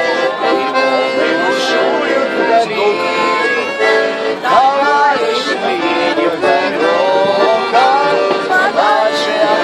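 Accordion playing a lively folk tune, with a man and a woman singing along over it.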